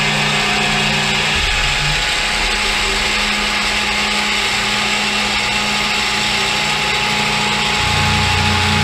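CNC-converted milling machine running its milling program, the spindle turning a cutter at about 1700 RPM. The mechanical noise is loud and steady, with a low hum that shifts about a second and a half in and again near the end.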